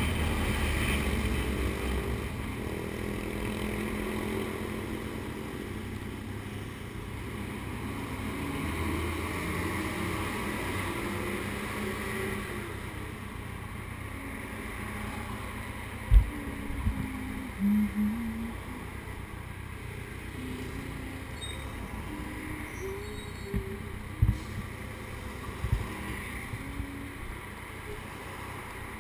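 Suzuki Hayabusa's inline-four engine running under way, easing off as the bike slows, then ticking over quietly at a standstill. A few sharp knocks come about halfway through and again later.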